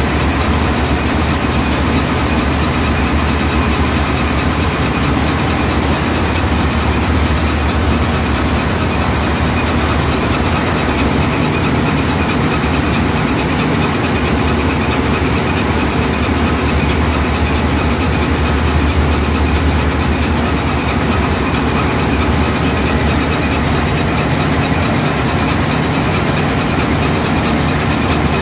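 Large diesel engines running steadily in an engine room: a loud, unbroken drone, deepest and strongest in the low range, with faint high whines above it.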